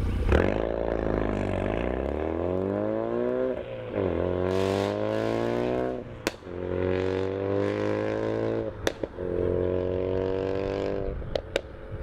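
2016 Ford Focus RS's turbocharged 2.3-litre four-cylinder running through a COBB turboback exhaust with its valve open, accelerating moderately through the gears. The note rises in pitch in each gear and drops at each of about three upshifts, with sharp pops at the later shifts.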